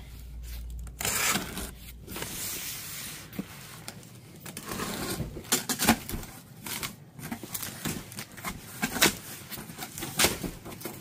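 Cardboard shipping box being opened by hand: the taped flaps are pulled apart with tearing and scraping of cardboard, followed by a run of short sharp knocks and clicks as the flaps are folded back and the cardboard insert is handled.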